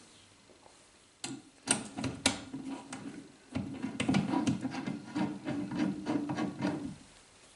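A few sharp clicks as small metal parts are handled, then about three seconds of steady scraping as a steel threaded rod is screwed by hand through a nut-bushing under the drill press spindle, metal threads rubbing on metal threads.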